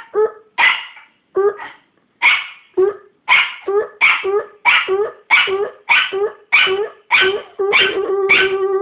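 Small grumpy dog barking in a rapid string of short, sharp barks that speed up to two or three a second, with a longer held note under the barks near the end.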